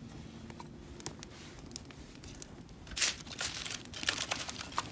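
Kindling fire crackling with scattered sharp pops. About three seconds in come louder bursts of rustling and crinkling as sticks of kindling are handled and laid onto the fire.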